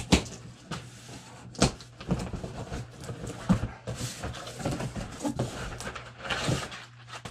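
Cardboard shipping box being opened and rummaged through by hand: flaps scraping and flexing, contents rustling, with several sharp knocks, the loudest right at the start and about a second and a half in.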